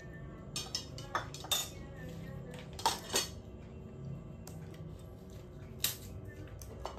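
Spoons clinking and scraping against metal plates as people eat, with several short, sharp clinks scattered through.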